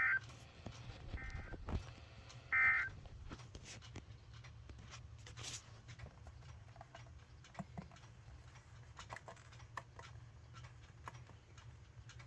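Emergency Alert System end-of-message signal: three short warbling data bursts near 2 kHz, a little over a second apart, the second fainter than the other two. Faint radio hiss with scattered crackles and a low hum follows.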